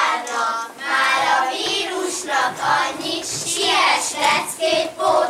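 Group of children singing together.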